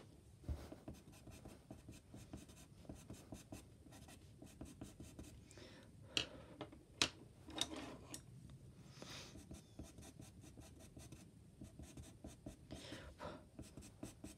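Pastel pencil scratching on sketch paper in short strokes, faint, with a few louder strokes around the middle.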